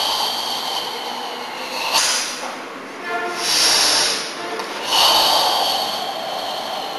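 Forceful, controlled karate breathing during the Tensho kata: three long hissing breaths forced through the mouth, the longest about two seconds, with a faint whistle in the hiss. A short pitched sound comes between the first and second breaths.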